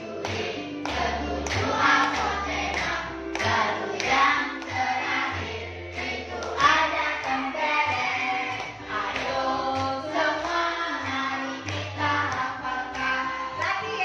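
A class of schoolchildren singing a song about the parts of a circle in Indonesian in chorus, clapping their hands along to it.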